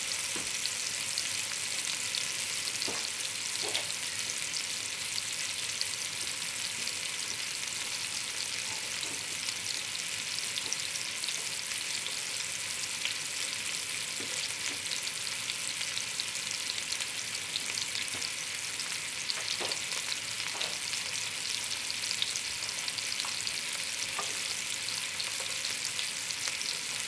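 Beef short ribs searing in hot fat in a cast-iron Dutch oven: a steady sizzle with many small crackling pops.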